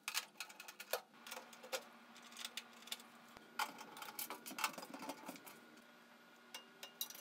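Irregular light clicks and metallic taps of a hand driver turning 5/16-inch hex-head screws out of an oven's sheet-metal board cover, over a faint steady hum.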